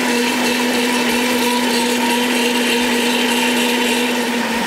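Sencor countertop blender running on its cream-soup program, puréeing hot radish-leaf soup: a steady, even motor whine over a rushing churn.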